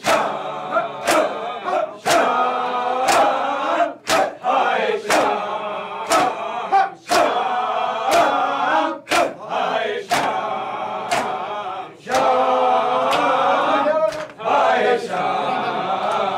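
A group of men chanting a noha together, with hands striking bare chests in unison about once a second in matam.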